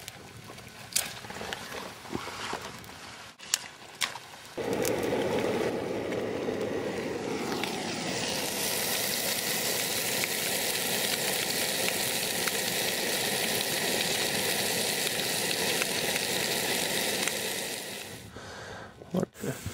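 Dry brush burning on a campfire: scattered crackling snaps at first, then about four seconds in a sudden, steady dense crackle and hiss that eases off near the end.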